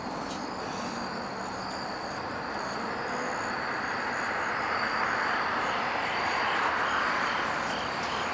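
Crickets chirping in a steady, regular pulse over a broad rushing background noise, which grows louder about halfway through.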